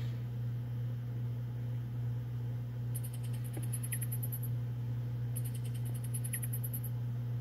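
Steady low hum throughout, with a cricket chirping twice in fast high-pitched trills: once about three seconds in and again about five and a half seconds in, each lasting about a second and a half.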